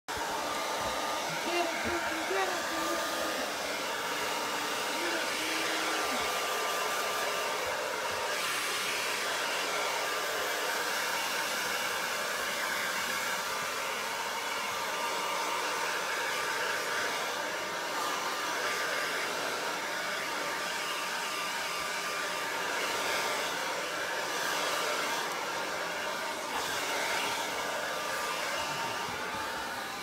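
Handheld hair dryer blowing steadily: a continuous airy rush with a thin, steady whine.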